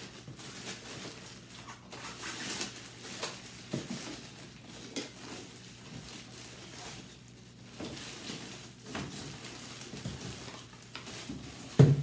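Plastic wrapping rustling and crinkling as a plastic-wrapped air-conditioner vent hose is handled in a cardboard box, with scattered small handling noises. A single loud thump comes just before the end.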